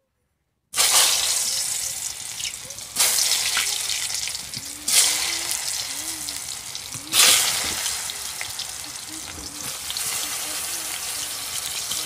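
Slices of taro dropped into hot oil in a kadai and frying. The sizzle starts suddenly about a second in and flares up loud three more times as further slices go in, then settles to a steadier, lower sizzle.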